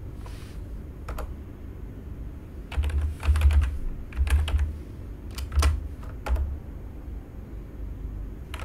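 Computer keyboard being typed on in several short bursts of keystrokes, each with a dull thud under the clicks. The typing stops about two-thirds of the way through.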